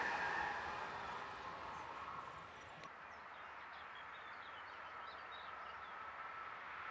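Train noise dying away over the first couple of seconds, leaving faint bird chirps in the quiet. Near the end the faint hum of the EC 163 Transalpin, a locomotive-hauled passenger train, begins to rise as it approaches.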